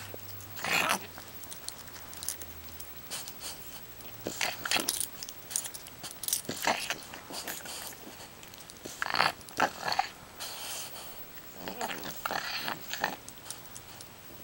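French bulldog and kitten play-fighting, the kitten biting at the dog's face and neck: short, irregular bursts of breathy mouthing and biting noises, several clusters a few seconds apart.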